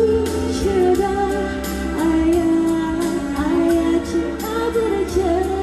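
A woman singing a slow melody into a microphone, holding long wavering notes, over backing music of sustained keyboard-like chords and a steady light percussion beat.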